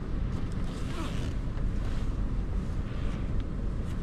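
Steady low rumble of a vehicle running, heard from inside its cab.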